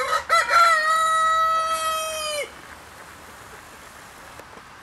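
Brahma rooster crowing once: a few short opening notes run into a long held note that drops off sharply at the end, about two and a half seconds in all.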